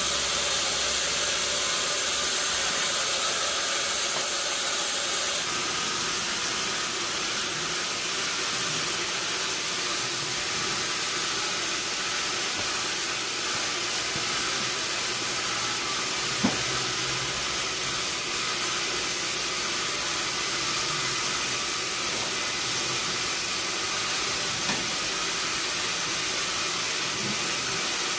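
Sawmill machinery running with a steady, hissing noise. A high thin whine joins in about five seconds in. Two sharp knocks come through, the louder about sixteen seconds in.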